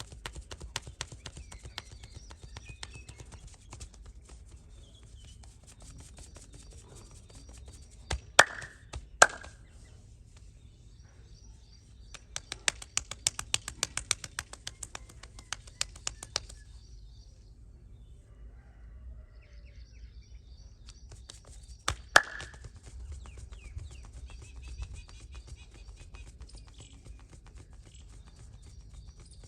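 Rapid, rhythmic hand tapping of a head-and-back massage, many quick taps a second, harder for a few seconds midway. Three loud sharp slaps stand out, two close together and one later.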